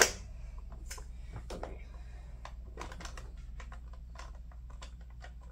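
Hard plastic toy parts clicking and tapping as hands fit a figure onto the ring track of a Jakks Pacific Death Egg playset. There is one sharp click at the very start, then a string of light, irregular clicks.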